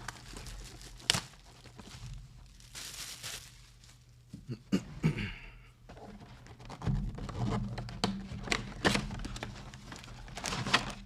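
Plastic shrink-wrap being torn and crinkled off a cardboard trading-card box, with a rip of tearing about three seconds in and several sharp taps and knocks of the box being handled.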